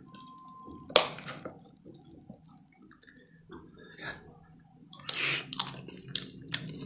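A metal spoon clicking and scraping against a cooked camel head's skull while digging out the brain, with a sharp click about a second in. A little after five seconds comes a louder burst of slurping and mouth sounds as the soft camel brain is eaten off the spoon, followed by more small clicks.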